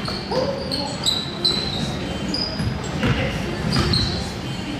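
Basketball game in play: a ball bouncing on a gym floor, sneakers giving short high squeaks many times over, and players' voices calling out now and then.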